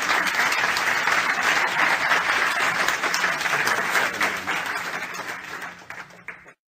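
Live workshop audience applauding, a dense patter of many hands clapping that thins out near the end and then cuts off abruptly.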